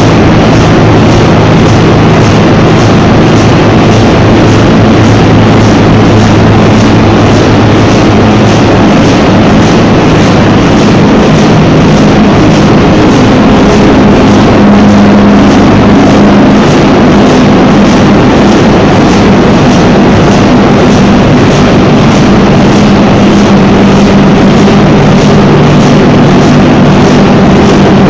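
The H.C. Ørsted diesel engine, a giant 1933 power-plant diesel, running steadily and very loudly. A deep hum is overlaid by an even mechanical beat a little faster than once a second.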